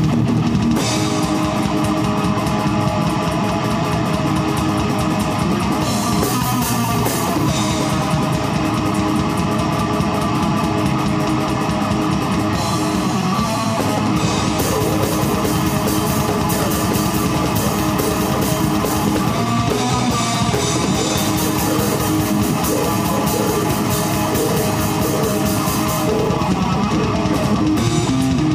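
A heavy metal band playing live: fast drumming on a drum kit, with a rapid, even kick-drum pulse and a steady cymbal wash, under distorted electric guitars.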